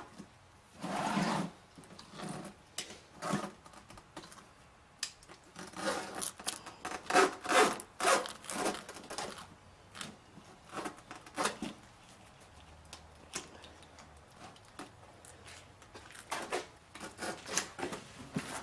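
Hook-blade knife slicing through the sidewall of a wet car tire, the rubber scraping and rasping in short, irregular strokes with pauses between.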